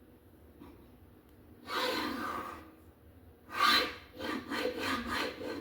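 A screw being turned by hand with a screwdriver into a particleboard cabinet panel. It makes rasping, grinding strokes: one longer stroke, then a run of shorter ones.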